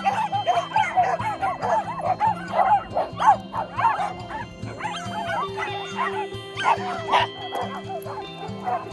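A pack of small dogs barking and yipping, many overlapping barks, dense at first and thinning out after about five seconds. A pop song plays underneath.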